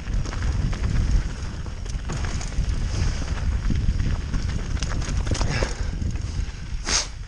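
Mountain bike riding down a rocky dirt singletrack: tyres crunching and knocking over loose stones and the bike rattling, over a steady low rumble. A short sharp hiss near the end.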